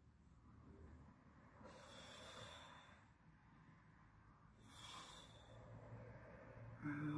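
A man breathing with effort: two long, noisy breaths, then a short, louder groan near the end.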